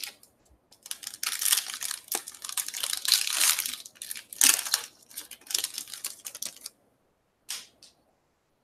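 Foil wrapper of a Topps Finest baseball card pack being torn open and crinkled, with a sharp crackle about four and a half seconds in. Two brief rustles follow near the end.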